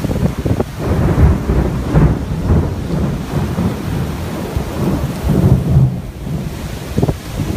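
Severe thunderstorm: heavy wind-driven rain hissing steadily under a loud, gusting low rumble that swells and eases every second or so.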